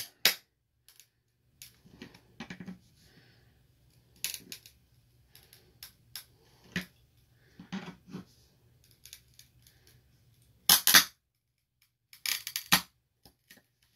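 Flathead screwdriver prying at the seam of a hard plastic Beckett (BGS) graded card case: scattered small clicks and scrapes, then sharp cracks about eleven seconds in and a few more a second or so later as the case splits.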